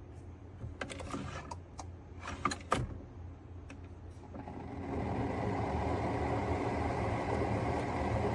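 A few clicks and knocks in the first three seconds, then the Keurig K-Elite single-serve coffee maker starts brewing: a steady motor hum with a thin, steady whine begins about four seconds in and holds.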